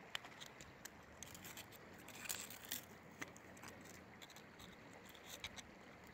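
A metal crevice tool picking and scraping at packed gravel in a bedrock crevice: faint, quick clicks and scrapes of small stones and metal on rock, busiest about two to three seconds in, over a faint steady hiss.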